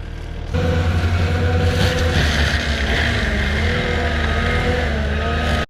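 Skid steer's diesel engine running hard: a loud, steady low drone with a wavering whine over it. It starts suddenly about half a second in and cuts off abruptly at the end.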